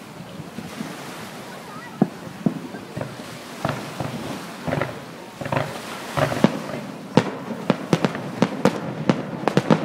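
Aerial fireworks shells bursting in a grand finale. The bangs begin about two seconds in, come faster and faster, and are several a second near the end.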